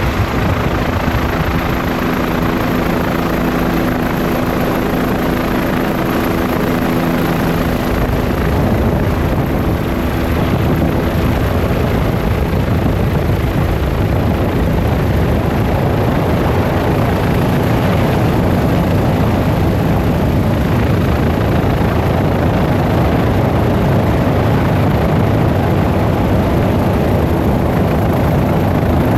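Helicopter in flight: steady rotor and engine noise with a wash of wind. A steady hum shows over the noise at first, fades about eight seconds in, and comes back near the end.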